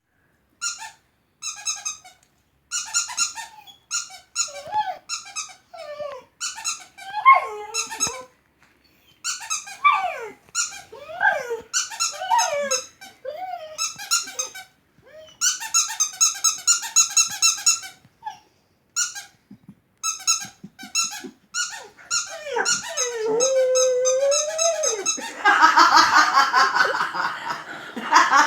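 Bursts of rapid, high-pitched squeaks, repeated again and again. Between and over them a dog cries out in rising and falling whines and howls, with one longer held howl near the end.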